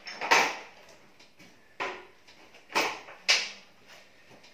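Four sharp knocks and clanks of metal parts being handled as the mower blade is fitted to the deck, the first and last loudest.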